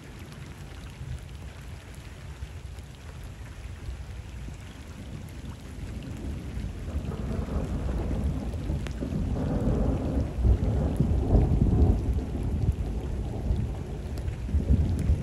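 Thunder rumbling over steady rain falling on canal water. The rumble builds from about halfway through, is loudest a few seconds before the end, then swells again at the close.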